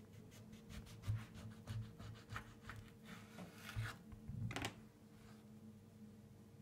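Knife cutting a mandarin in half: a series of faint scraping strokes, with a sharper stroke about four and a half seconds in.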